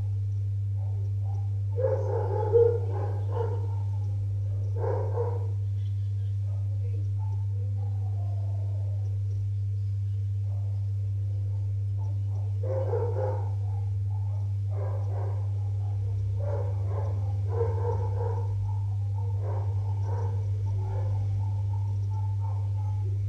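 A steady low hum, with muffled intermittent sounds: a few short ones about two seconds in and again about five seconds in, then a longer run of them from about thirteen to twenty-one seconds.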